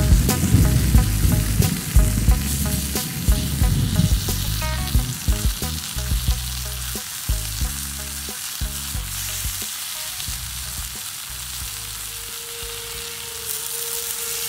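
Vegetables sizzling on a flat stone slab heated over a wood fire, with scattered sharp clicks in the first half. Soft background music runs underneath.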